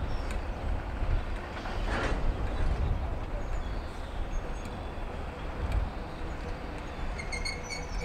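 Low, steady rumble of a diesel locomotive, with a brief hiss about two seconds in and a few short high squeaks near the end.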